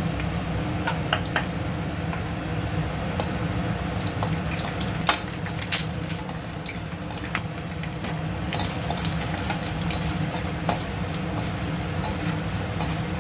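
A tempering of mustard seeds, peanuts and cashews frying in hot oil as it is stirred. It sizzles steadily, with scattered sharp clicks.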